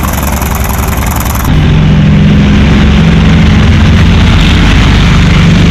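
Propeller fighter plane's piston engine running, with a steady low drone that turns louder about a second and a half in.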